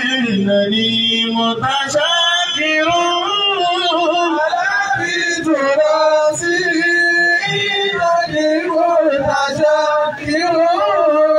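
A man singing a melodic chant into a microphone, amplified. His voice glides between notes and holds several of them, ending on a long held note near the end.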